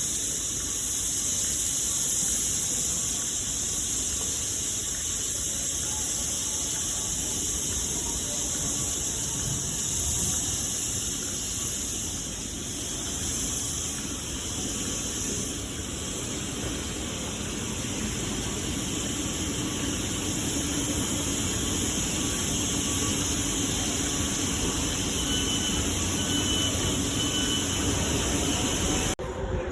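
Steady hiss with a low rumble beneath, typical of a train standing at a station platform.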